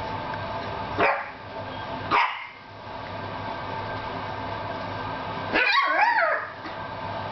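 Poodle puppies yapping: two short, sharp yaps about a second apart, then a longer run of yips that bend up and down in pitch near the end.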